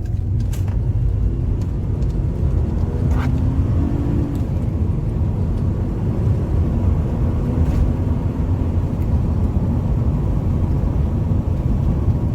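VW Bora V6 driving along: a steady low rumble of engine and road noise, with the engine note rising around three to four seconds in as it accelerates.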